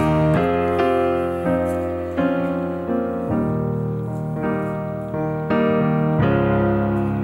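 Background piano music, a slow run of notes and chords.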